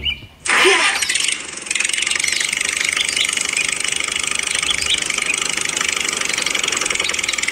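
Engine sound of a miniature toy tractor starting about half a second in, then running steadily with a fast buzzing rattle.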